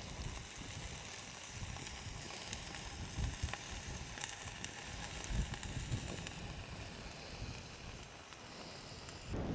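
Ribeye steak sizzling over a small camping stove, a quiet steady hiss with scattered faint crackles. A low rumble of wind on the microphone runs underneath.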